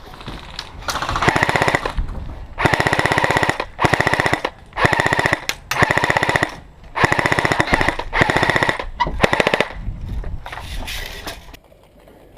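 Airsoft rifle firing in rapid full-auto bursts, about eight short bursts in a row, then fading off near the end.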